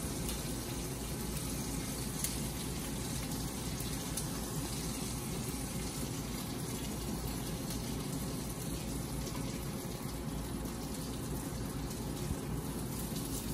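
Steady sizzle of meatballs browning in hot oil in a skillet.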